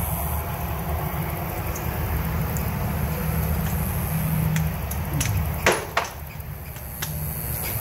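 A few sharp metallic clicks and knocks, the loudest a little over halfway through, as tools and parts are handled in a side-by-side's engine bay, over a steady low rumble.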